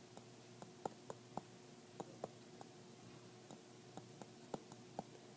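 Stylus tip tapping and clicking on a pen tablet during handwriting: faint, irregular clicks, about three a second.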